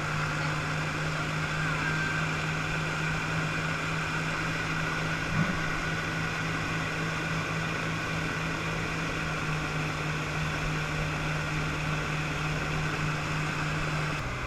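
Motorboat engine running steadily at speed while towing an inner tube, with rushing wind and water noise. The engine note drops a little near the end.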